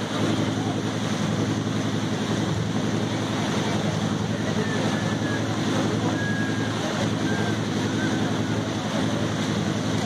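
Boat engine running steadily with the boat under way, a constant low drone, over rushing water and wind buffeting the microphone.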